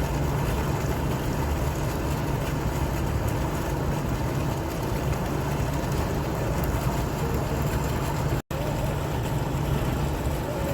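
Fountain water splashing and flowing in a steady rush, with a deep low rumble beneath. It cuts out for a split second about eight and a half seconds in.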